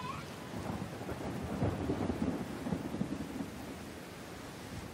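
Thunder rumbling over steady rain, swelling in the middle and dying away toward the end.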